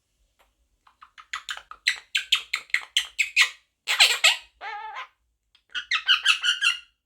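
Monk parakeet (Quaker parrot) chattering in fast runs of short, high, squeaky calls, about five a second. About halfway through comes one louder, harsh squawk.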